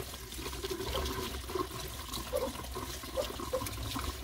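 Kitchen sink tap running steadily, water splashing as vegetables are rinsed under it.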